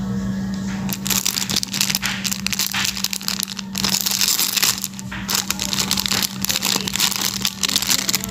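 Clear plastic packaging around phone cases crinkling and crackling as hands handle and unwrap it, starting about a second in, over a steady low hum.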